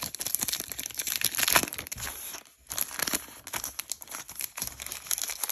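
Panini trading-card pack wrapper crinkling and tearing as it is pulled open by hand along its seam, in quick irregular crackles with a short lull about halfway through.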